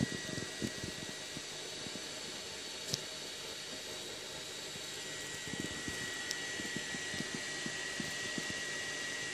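Running aquarium equipment: a steady hiss with a thin, constant high whine and scattered soft pops, and a sharp tick about three seconds in.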